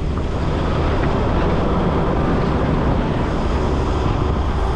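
Steady engine and road noise of a four-wheel drive, heard from inside the cabin while it is being driven.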